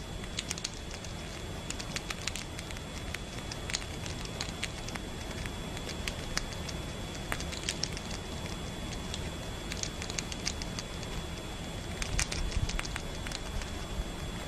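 Dense, irregular crackling and clicking over a steady low hiss, with a faint thin high whine.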